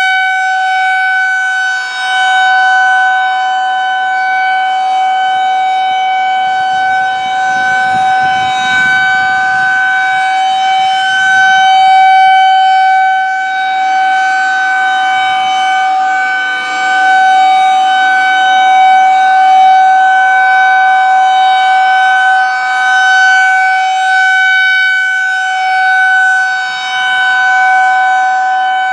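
Federal Signal 2001-130 rotating outdoor warning siren sounding a steady, unbroken alert tone, its level swelling and dipping as the turning horn sweeps toward and away.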